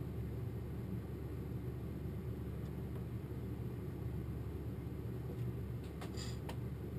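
Steady low rumble of room noise, with a few faint clicks about six seconds in.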